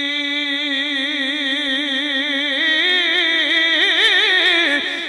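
A man's voice holding one long sung note in melodic Punjabi Sufi recitation. It is steady at first, then wavers with growing vibrato and steps up in pitch about halfway through.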